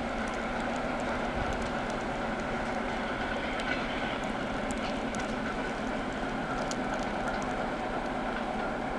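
ЭП2Д (EP2D) electric multiple unit running through the station, a steady rolling noise with scattered faint clicks.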